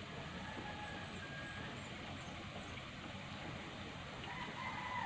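A rooster crowing twice: faintly about half a second in, and louder near the end. Underneath is a steady hiss from a pan of bottle-gourd stew simmering on a gas burner.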